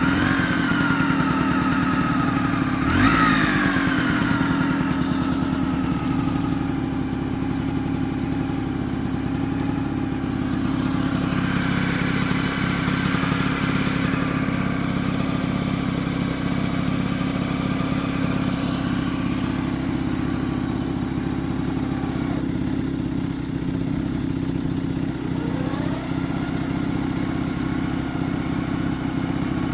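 Vespa PX two-stroke single-cylinder engine running at idle, blipped sharply once about three seconds in, held a little higher for several seconds in the middle, and blipped lightly again near the end. It carries the odd noise that appeared after a new clutch was fitted.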